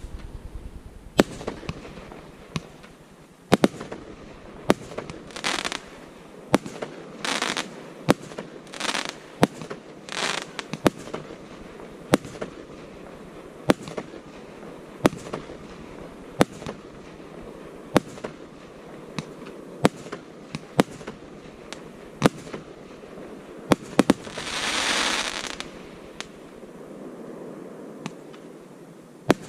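Fireworks display: a steady run of sharp bangs from bursting shells, broken by several short hissing bursts. One longer hiss comes near the end.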